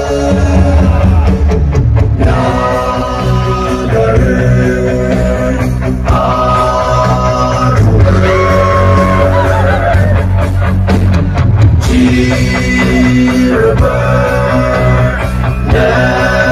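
Loud live band music with a singer over a concert sound system, guitar over a strong, steady bass.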